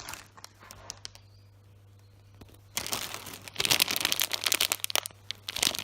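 Plastic packaging crinkling as it is handled, in dense bursts from about three seconds in, after a few faint clicks.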